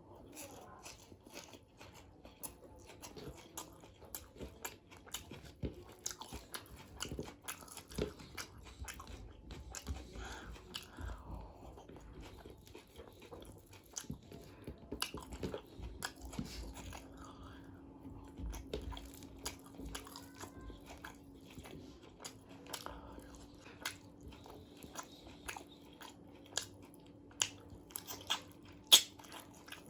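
Close-miked eating of chicken biryani: chewing with crunchy bites and many sharp wet mouth clicks, the loudest near the end. A faint steady hum comes in about halfway through.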